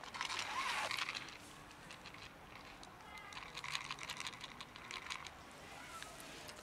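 Crackling, rustling handling noise close to the microphone in the first second, then scattered small clicks and crackles a few seconds in, as a plastic tray of cat food is handled.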